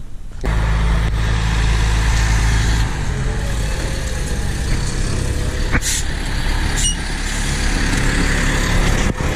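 Military cargo truck's diesel engine running close by: a loud, steady low rumble that starts suddenly about half a second in, with a faint steady whine over it.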